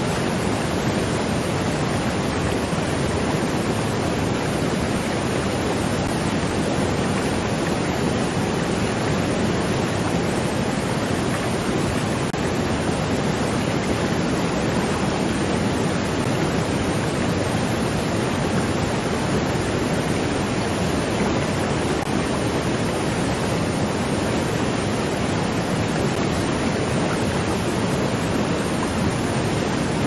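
Waterfall: falling water making a steady, unchanging rush.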